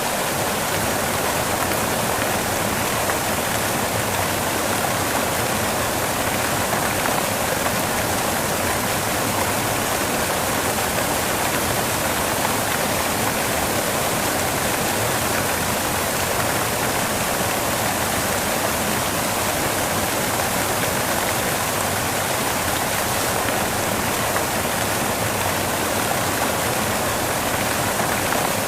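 Relaxing white noise: a steady, unchanging hiss spread evenly from low to very high pitches.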